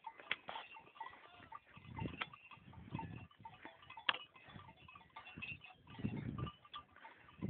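Two billy goats fighting, their heads clashing in a few sharp knocks spread through the fight.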